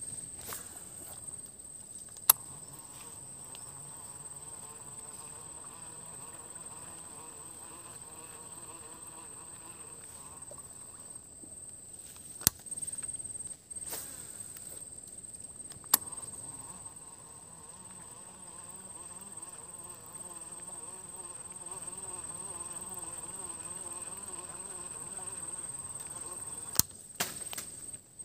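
A flying insect buzzing close to the microphone with a wavering hum, which stops for a few seconds midway and then returns. Three sharp clicks cut through it, about two seconds in, near twelve seconds and at sixteen seconds, over a steady high-pitched whine.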